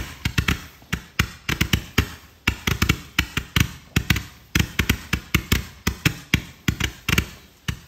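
Consumer multi-shot firework cake firing a rapid string of launches: sharp thumps several times a second, often in quick pairs and triples.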